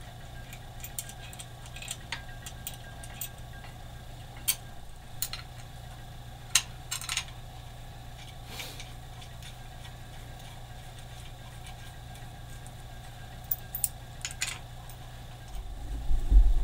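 Scattered sharp metallic clicks and clinks of hand work on a motorcycle's electric drive motor as the drive sprocket and chain are fitted, over a steady low hum. A low rumble builds near the end.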